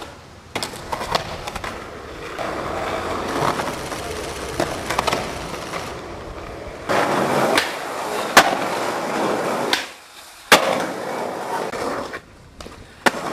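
Skateboard wheels rolling on concrete across several runs, with a few sharp clacks of the board in the second half, two of them loud.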